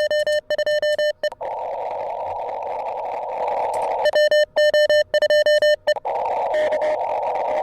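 Morse code (CW) from an amateur radio transceiver: a pitched tone keyed in quick dots and dashes, one run at the start and another about four seconds in, over a steady narrow-filtered hiss of receiver static.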